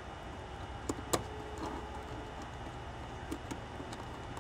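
A few faint, sharp clicks of small screws, nuts and a screwdriver being handled while a screw is driven into the case plate, the loudest a little over a second in, over a steady low hum.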